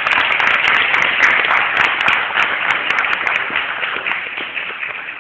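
Audience applauding, a dense spell of clapping that gradually tapers off toward the end.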